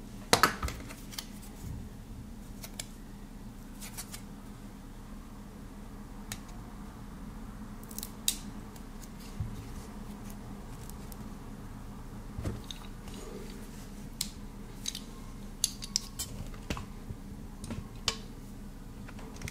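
Small hand tools clicking and tapping on an SSD's case during disassembly. A loud clatter about half a second in comes as a metal precision screwdriver is set down. Then a plastic opening tool gives scattered sharp clicks as it is pried along the case seam, the clicks bunching near the end.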